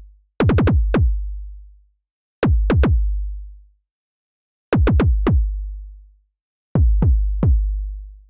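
Synthesized kick drum from FabFilter Volcano 3's self-oscillating low-pass filter, tuned around 50 Hz. An envelope sweeps its cutoff down on every hit, turned up higher into techno territory. It plays in four short runs of three to five hits, each hit a fast falling pitch sweep into a low thump with a long low tail.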